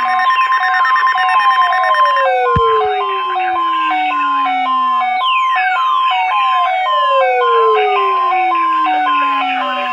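Electronic siren and alarm tones layered together: a two-tone hi-lo alternation, a long falling sweep from high to low that restarts about every five seconds, and a warbling buzz during the first two seconds.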